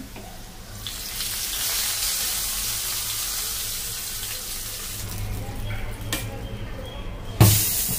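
Hot tadka oil with cumin, dried red chillies and curry leaves poured into dal, sizzling loudly from about a second in and fading over the next few seconds as the dal is stirred. A single sharp knock comes near the end.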